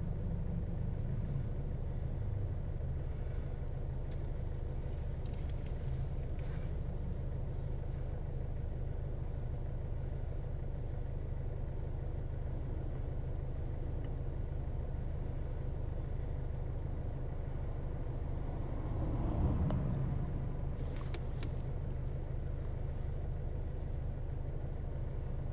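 Steady low background hum, with a few faint clicks and scrapes from a screwdriver loosening screws in a laptop's plastic underside, and a brief louder bump about three-quarters of the way in.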